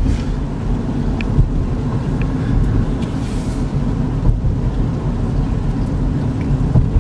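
Interior cabin noise of a 2014 GMC Terrain with a 2.4-litre four-cylinder engine, cruising at about 36 mph on a wet road: a steady low rumble of engine and tyre noise.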